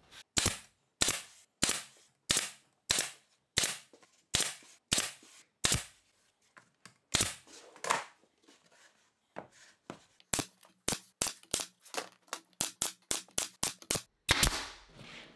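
Porter-Cable pneumatic brad nailer firing brads through a wooden face frame into a PVC box: a run of sharp shots about every half second, a short pause, then a faster run of about three shots a second.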